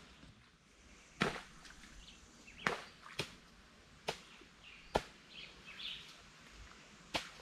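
Six sharp cracks or knocks at irregular intervals over quiet outdoor background, with faint chirping between them.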